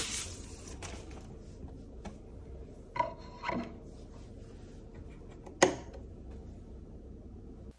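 Vinyl record being handled: a paper inner sleeve rustles as the record is slid out, then two knocks as the record is set down on an acrylic turntable platter, and a sharp click about five and a half seconds in.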